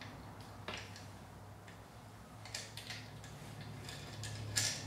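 Faint metallic clicks and handling noise as nuts are threaded by hand onto the studs of a rear transmission mount, with a sharper click near the end.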